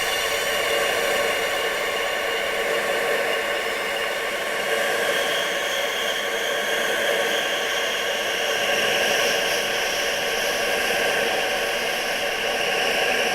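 Steady rushing wind sound, an even hiss with faint sustained tones held within it, growing a little brighter from about five seconds in.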